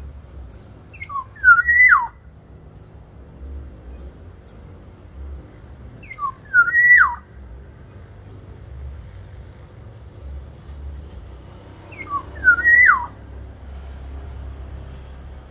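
Black-naped oriole singing its fluting whistled song: three short phrases about five to six seconds apart. Each phrase is a few quick notes rising to a high whistle and then dropping sharply.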